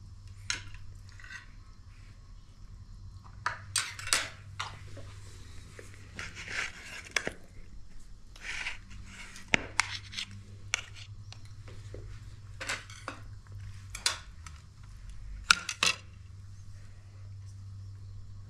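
A metal knife clinking and scraping on ceramic plates while a sponge cake and jelly are cut and served: scattered sharp clicks and short scrapes over a steady low hum.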